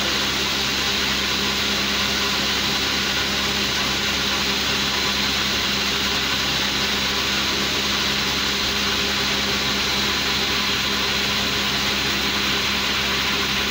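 Machinery running steadily: a constant, unbroken motor drone with a steady hum and a high whine.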